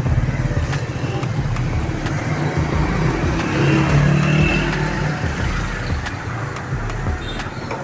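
Street traffic: motor vehicle engines running, with a steady low hum that swells briefly about four seconds in.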